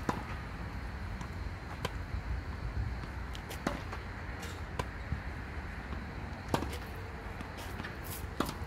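Tennis balls struck with rackets during a rally, sharp pops about every two seconds over a steady low rumble.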